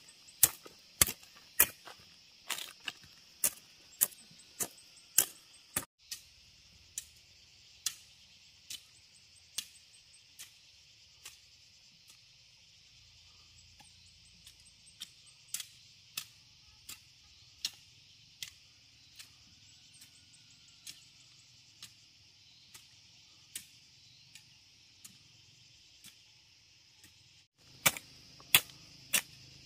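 Repeated sharp strikes of a hand tool, roughly one to two a second: loud at first, fainter through the middle, and loud again near the end. A steady high drone of insects runs underneath.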